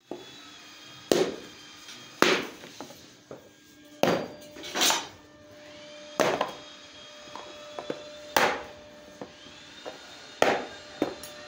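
A slab of paraffin wax being struck with a metal bar to break it up: about seven sharp knocks at uneven intervals of one to two seconds, with chunks of wax cracking off.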